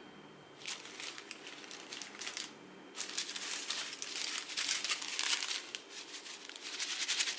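Small zip-lock plastic bags of square resin diamond-painting drills crinkling as they are handled and picked up. The crinkling starts about a second in, pauses briefly, then goes on busily to the end.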